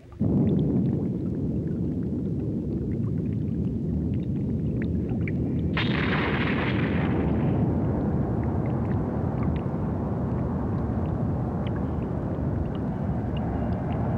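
Anime sound effect of a giant monster fortress: a deep, continuous rumble, with a hissing rush breaking in about six seconds in and fading away over a second or two.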